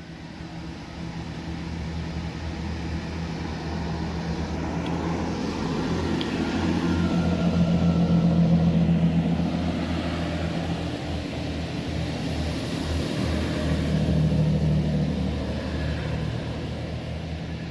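Two-unit class 165 diesel multiple unit pulling out of the station, its underfloor diesel engines running under power. The engine note grows to its loudest about eight seconds in, swells again around fourteen seconds, then eases off.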